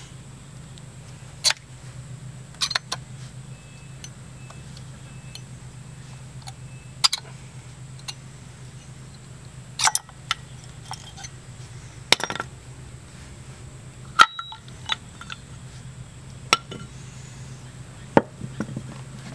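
Hand tools and brake parts clinking and tapping, a dozen or so sharp metal knocks at uneven intervals, over a steady low hum.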